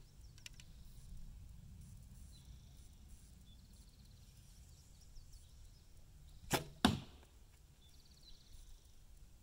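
A bow shot: a sharp bowstring release followed about a third of a second later by the arrow striking the target, two quick loud snaps about two-thirds of the way in.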